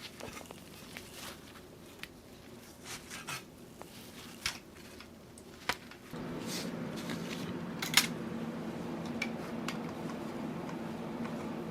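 Small clicks, taps and rustles of hard plastic and metal PC parts being handled and fitted. About six seconds in, a steady low hum starts beneath them.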